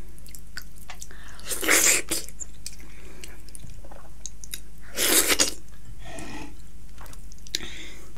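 Close-up eating sounds: wet chewing and small mouth clicks, with two loud slurps of mutton-trotter soup, about one and a half seconds and five seconds in.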